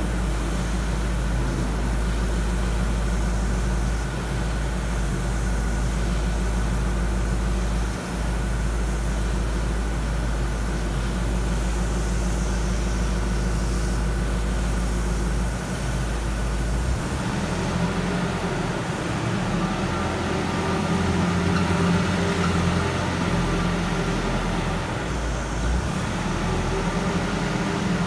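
Volvo L45G compact wheel loader's diesel engine running steadily, changing to a higher, busier sound about halfway through as the machine is driven.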